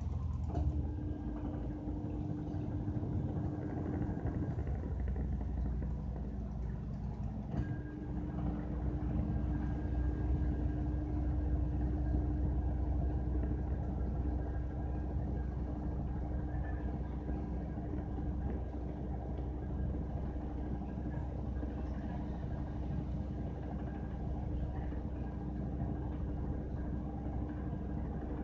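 Washing machine running with a steady low hum and a droning tone. The tone drops out about four seconds in and comes back after a faint click about three seconds later.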